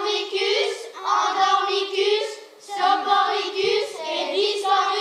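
Children's voices singing high-pitched phrases about a second long, with short breaks between them.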